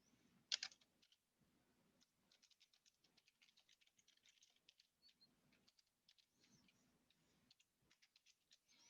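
Faint computer keyboard typing: one sharper keystroke about half a second in, then a fast run of light key taps.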